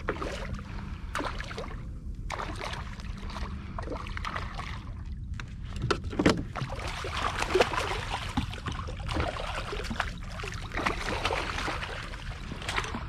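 Water splashing and lapping against a fishing kayak, with irregular knocks and clicks of gear being handled over a steady low rumble.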